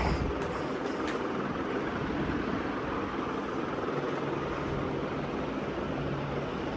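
Steady rumbling background noise with a faint low hum, and one short knock right at the start.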